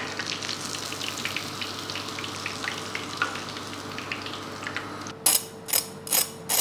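Hot oil sizzling and crackling as fried cornflake-crusted chicken patties are lifted out of the pan. About five seconds in, a knife blade is scraped repeatedly across a patty's crisp crust, about three strokes a second.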